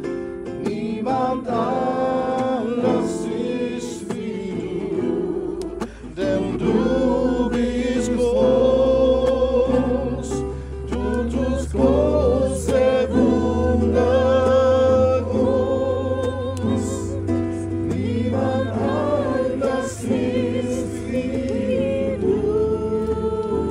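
A group of voices singing a worship song together, several lines of melody at once.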